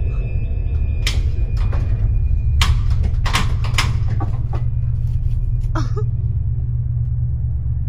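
A steady low rumble with a string of sharp knocks and clatters in the first four seconds, then a short rising squeak near six seconds.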